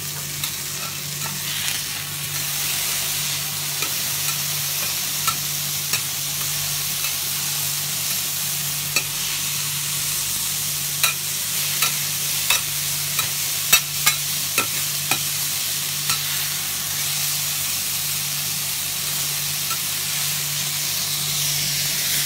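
Cubes of beef searing on a flat steel teppanyaki griddle: a steady sizzle, with scattered sharp taps and scrapes of a metal spatula on the plate as bean sprouts are pushed about. A low steady hum runs underneath.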